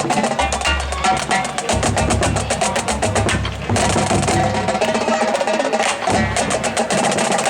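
Marching drumline playing a cadence: fast snare drum strokes over bass drums, with a brief break about three and a half seconds in before the pattern picks up again.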